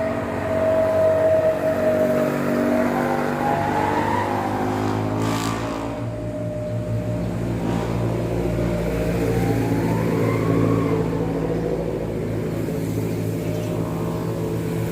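A motor vehicle's engine running steadily, its pitch rising twice as it revs, about four seconds in and again about ten seconds in.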